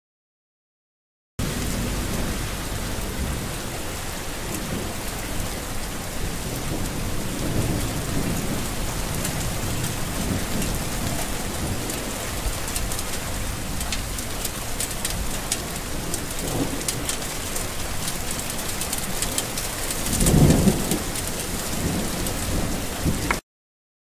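Steady heavy rain falling, with low rumbles of thunder; the loudest rumble comes near the end. The sound starts abruptly just after the beginning and cuts off just before the end.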